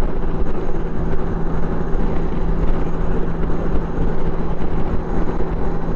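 Motorcycle cruising at road speed: a steady engine hum under constant wind rush.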